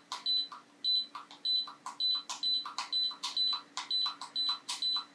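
iRepair MS1 preheating platform's control panel beeping as its temperature button is pressed over and over: a short high beep with a key click about twice a second, each press raising the set temperature by 10 degrees.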